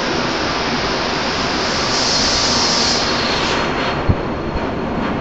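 Toei Oedo Line subway train starting to pull away from an underground platform: a steady rushing noise, a brief hiss about two seconds in, and a single thump about four seconds in.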